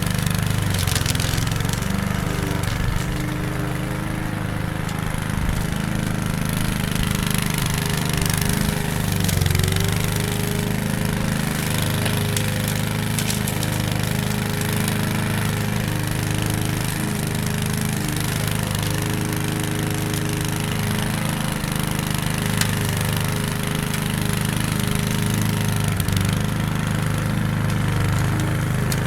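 Lawn mower engine running steadily, its pitch dipping briefly about nine seconds in.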